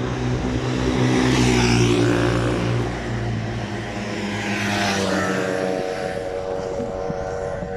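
Engine of a passing motor vehicle, loudest in the first two seconds, its pitch dipping slightly as it goes.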